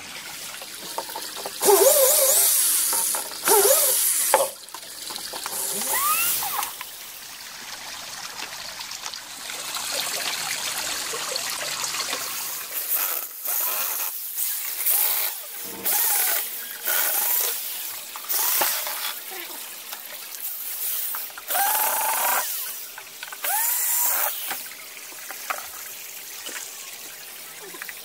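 Cordless drill-driver backing screws out of the boards of a wooden box trap, running in repeated short bursts with a whine that changes pitch as each burst starts.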